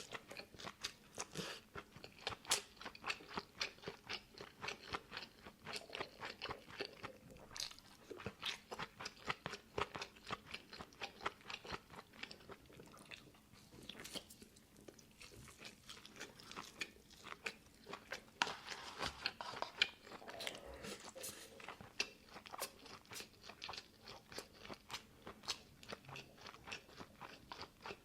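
Someone chewing crunchy fried chicken close to the microphone: a steady run of crisp crunches, a few a second, easing off for a moment about halfway through.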